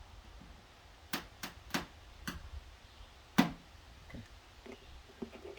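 About five sharp clicks at uneven spacing from glue-pull dent repair tools and glue tabs being worked on a panel, the last, a little past three seconds in, the loudest. A few faint ticks follow.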